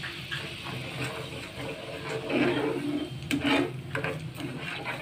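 Sugar and water bubbling as they heat in a frying pan to make sugar syrup. A metal spoon stirs and clicks against the pan a few times around three to four seconds in.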